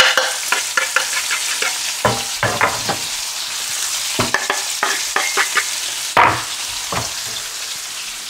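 Pork neck slices sizzling steadily as they sear in hot lard in a frying pan over high heat. A spatula scrapes and knocks against the pan and meat several times, loudest about six seconds in.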